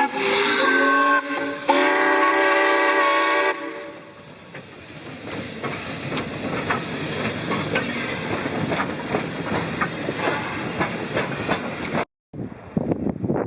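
Whistle of Rx-class steam locomotive RX 207, two blasts of a chord-like tone, the second longer. It is followed by the train running, a noise of rapid, regular beats that grows louder. A sudden cut near the end leaves a windier sound.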